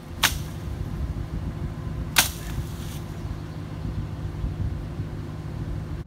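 Two sharp whacks about two seconds apart as a long dead branch is swung into a brushy bush, over the steady low hum of a vehicle engine idling.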